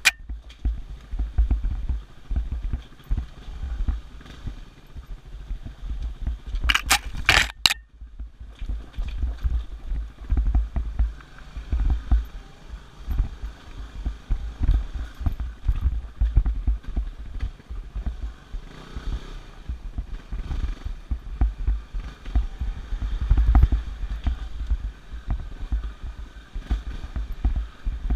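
Yamaha WR250R's 250 cc single-cylinder four-stroke engine running as the dirt bike is ridden along a rough trail, with wind buffeting the microphone. A brief loud scratchy burst comes about seven seconds in.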